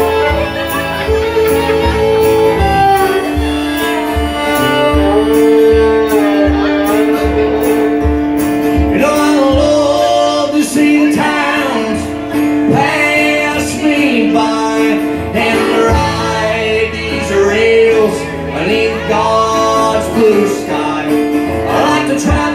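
Live old-time country duet of fiddle and strummed acoustic guitar, with a long held fiddle note through the first half. A man's and a woman's voice sing over it from about halfway through.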